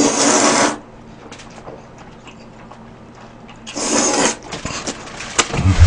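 A person slurping jajangmyeon (black-bean-sauce noodles) twice, loud sucking hisses about three and a half seconds apart, with small wet chewing clicks between.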